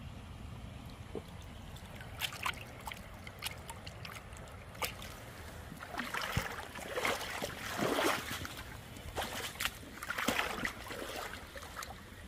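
Water sloshing and dripping as hands lower a trout into a shallow stream and let it go, with louder splashing about halfway through, over the steady rush of the running stream.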